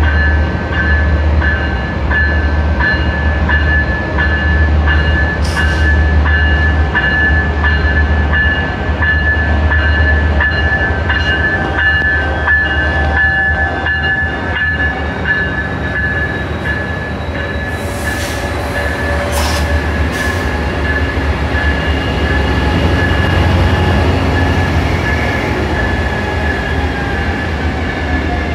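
Two Amtrak ALC-42 Charger diesel-electric locomotives, each with a 16-cylinder Cummins QSK95 engine, pulling out and passing close by with a deep, steady engine rumble. A high, steady ringing tone runs over the rumble, and brief hissy bursts come in the second half.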